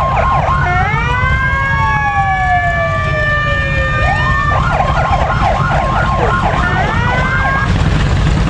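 Several police car sirens sounding at once. A fast yelp gives way about half a second in to overlapping wails that sweep up and down at different pitches. The fast yelp returns about halfway through and the sirens cut out near the end, over a steady low rumble.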